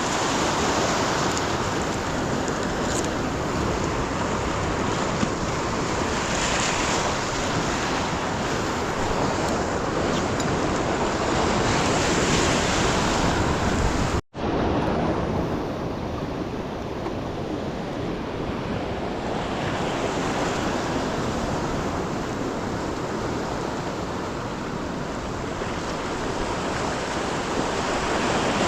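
Ocean surf breaking and washing up the beach, with wind on the microphone. The sound swells and eases slowly, and cuts out for an instant about halfway through.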